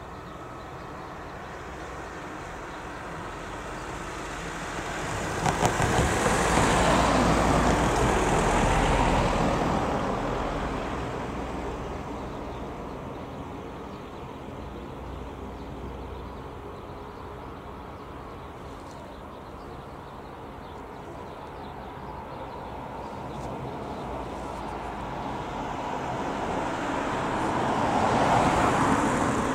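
Two road vehicles driving over a level crossing, one about six to ten seconds in and one near the end: tyre and engine noise swells and fades as each passes, with a brief clatter at the loudest point as the wheels cross the rails.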